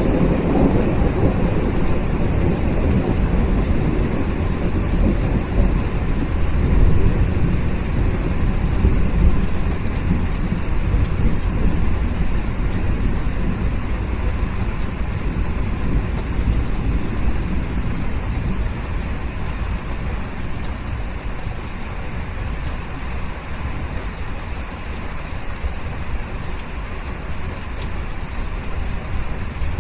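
Steady heavy rain with a low rumble of thunder that is strongest at the start and slowly dies away over the first two-thirds.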